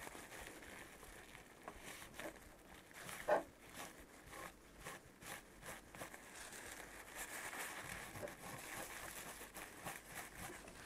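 Faint rubbing and crinkling of a paper towel wiping old thermal paste off a graphics card's GPU die, with scattered light clicks and a sharper tap about three seconds in.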